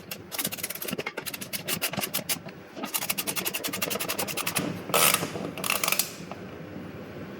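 Ratchet wrench tightening bolts: two runs of rapid pawl clicks as the handle is swung back and forth, then two louder rasping bursts near the end.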